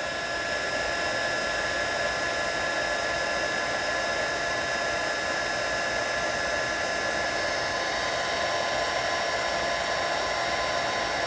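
Heat gun blowing hot air steadily, a fan hiss with a few faint steady whining tones, as it reflows solder paste under a surface-mount resistor.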